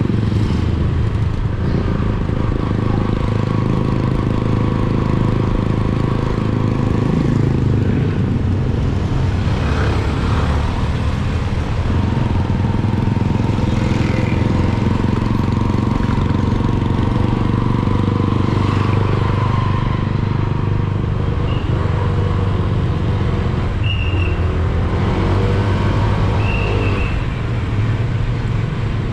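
Motorcycle engine running steadily while riding, with small rises and falls in speed, mixed with wind and road noise. Heard through an action camera's built-in microphone covered with foam.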